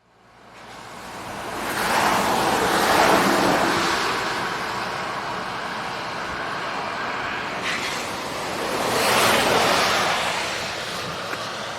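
Lake waves washing onto a rocky shore: a steady rush of water noise that swells twice, once about two seconds in and again near nine seconds.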